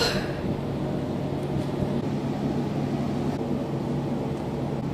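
A steady low hum over faint background noise, with a short click right at the start.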